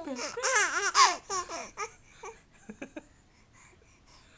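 Infant of about five months laughing out loud: a quick run of high-pitched laughs in the first two seconds, then a few faint short sounds.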